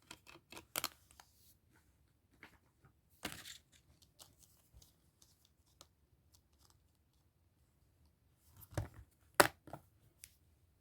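Plastic Blu-ray cases and their packaging being handled: scattered light clicks and rustles, with a few sharper clicks about nine seconds in.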